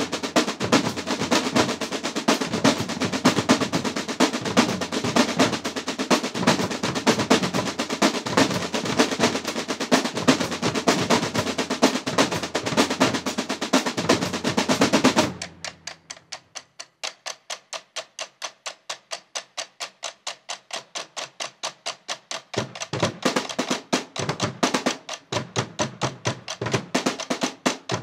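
A drum corps of rope-tension snare drums and bass drums plays a loud, dense cadence with rolls. About halfway through it breaks off suddenly into a quiet run of light, evenly spaced strokes, about three a second. Near the end the bass drum comes back in and the drumming builds again.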